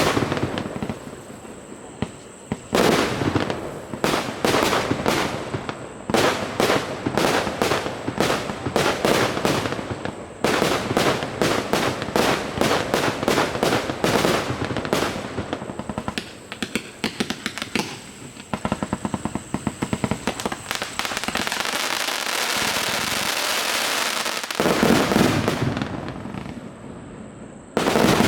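A 300-shot consumer fireworks cake firing: rapid runs of sharp reports, several a second, in repeated volleys. About three quarters of the way through these turn into a dense continuous crackle, and loud bangs follow near the end.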